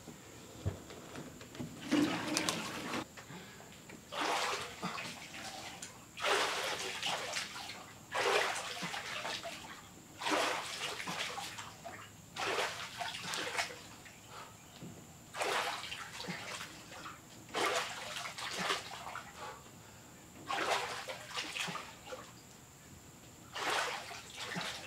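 Lake water sloshing and splashing around a man's body as he pulls himself up out of it and drops back in, doing pull-ups while standing waist-deep; a splash about every two seconds.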